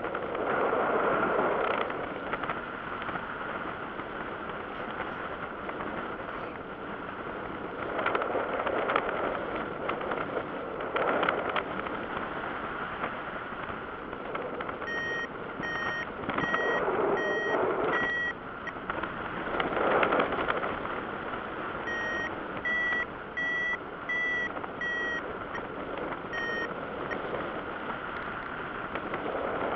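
Wind noise on the microphone in flight, swelling in gusts. From about halfway through, a paragliding variometer beeps in runs of short, evenly spaced beeps, about one and a half a second, the tone that signals the glider is climbing.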